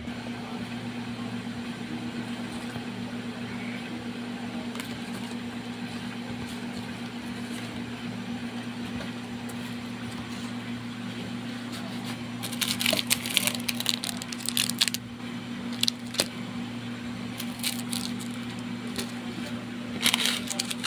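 Steady low electrical hum throughout. From about halfway in, bursts of sharp crackling and rustling from plastic seasoning sachets and packaging being handled and laid down, loudest again near the end.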